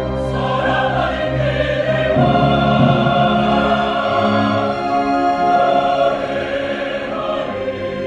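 A mixed choir singing with a string orchestra, in long held chords that change a couple of times.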